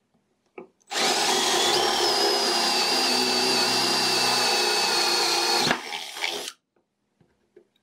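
Corded angle grinder fitted with a drill chuck, drilling a hole in a wooden board. The motor starts about a second in and runs with a high whine that sinks slightly in pitch while the bit cuts, then it is switched off and winds down.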